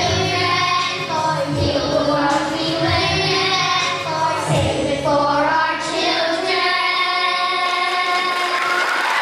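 Large children's choir singing over a backing track with a steady bass, then holding a long final chord from about six seconds in as the accompaniment drops away.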